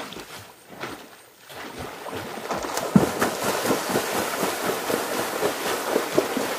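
Water splashing and churning as a swimmer kicks hard at the surface: a rapid, irregular run of splashes starting about two seconds in, with a sharper splash near three seconds.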